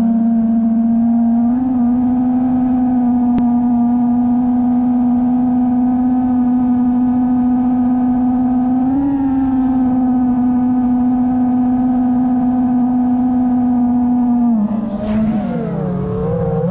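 Multirotor drone's electric motors and propellers whining at a steady pitch, heard from on board. The pitch rises briefly about two seconds in and again about nine seconds in, then dips and wavers near the end.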